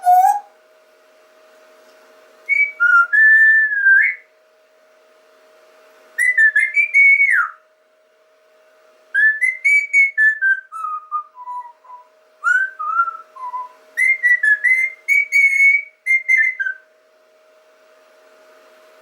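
Whistling in a few short melodic phrases with sliding pitch, one of them a falling run of notes near the middle, over a faint steady hum.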